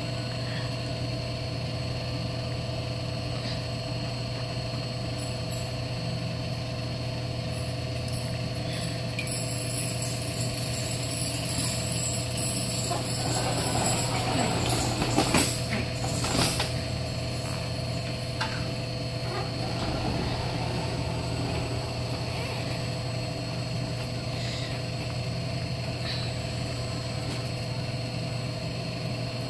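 Steady hum of a large store's background, several fixed tones held throughout, with a louder, noisy stretch of a few seconds about halfway through.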